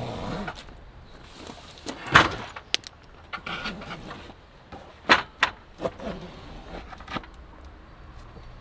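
Knocks, rattles and rustling from an RV patio awning's roller tube and loose fabric being lowered by hand. There is a series of sharp knocks, the loudest about two seconds in.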